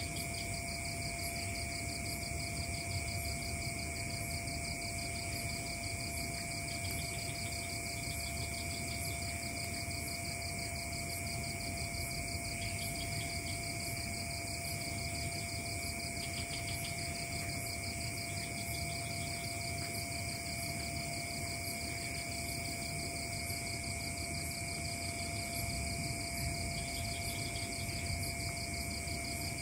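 Steady night chorus of forest insects: several constant shrill tones layered with a fast pulsing trill, unchanging throughout.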